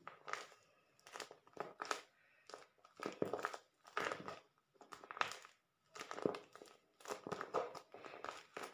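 A homemade paper squishy covered in clear tape crinkles as fingers squeeze and press it, in a string of short, irregular crackles about one or two a second.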